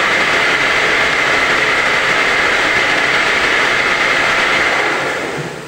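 Home-assembled round gallon bottle washing machine running with a steady mechanical whir, then winding down and dying away near the end.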